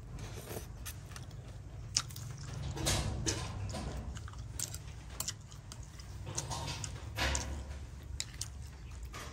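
Metal spoon clinking and scraping in a ceramic bowl of soup, scooping up shrimp and papaya pieces, with scattered short clicks and soft wet sounds.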